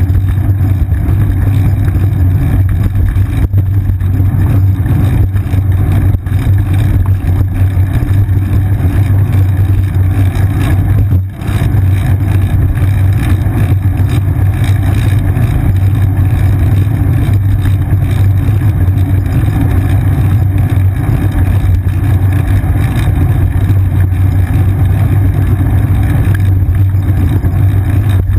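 Steady, loud low rumble of wind and road vibration picked up by a seat-mounted GoPro Hero 2 as a bicycle rolls along pavement, with a brief dip about eleven seconds in.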